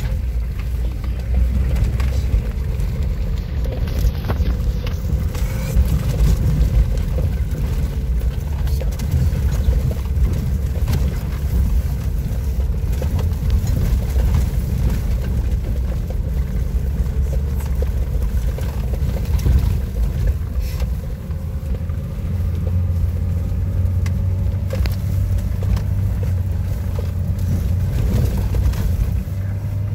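Engine and drivetrain rumble of an off-road vehicle, heard inside its cabin while it drives over a rough mountain track, with scattered knocks and rattles. The engine note steadies about two-thirds of the way through.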